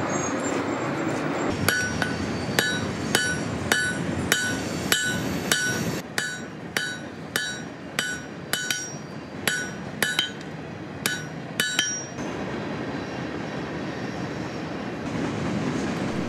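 Hand hammer striking hot wrought iron on an anvil, about eighteen ringing blows at roughly two a second, stopping about twelve seconds in. A steady rushing noise runs underneath and carries on after the blows end.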